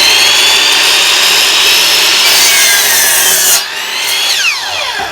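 Electric power saw cutting through a wooden plank, running loud and steady with a high whine. About three and a half seconds in the cut finishes and the level drops. About a second later the motor is switched off and its whine falls in pitch as the blade spins down.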